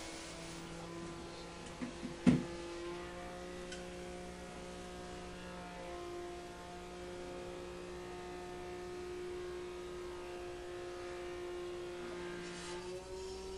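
Steady hum of several held tones that shifts in pitch a few times, with one sharp knock about two seconds in.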